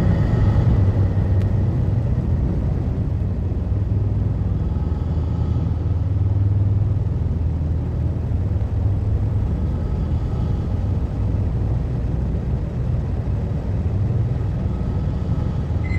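Power-electronics noise music: a loud, steady, dense low rumble with a noisy haze above it and a thin high tone that fades out about a second in.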